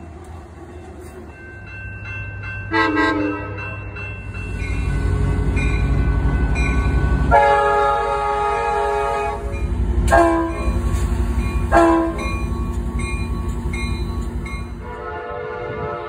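Diesel locomotive air horns blowing, each a chord of several notes. A short blast sounds about three seconds in, then a locomotive's engine rumble builds. A long horn blast follows from about seven seconds, with sharp short blasts near ten and twelve seconds and another long blast after them. A fresh horn starts near the end.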